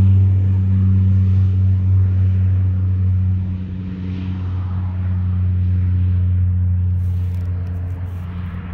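Steady low engine drone, dropping somewhat in loudness about three and a half seconds in and fading slightly toward the end.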